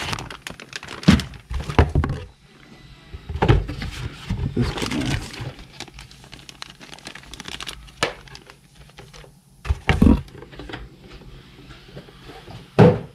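Clear plastic packaging bag crinkling and a cardboard box being handled as a new brake master cylinder is unpacked, with a few louder knocks as things are moved and set down.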